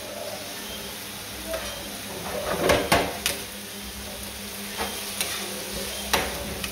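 Diced tomatoes and onion sizzling in a nonstick frying pan over a gas flame as the tomatoes break down, with a metal spoon scraping and tapping the pan as they are stirred. The loudest scrapes come about halfway through, with a few more near the end.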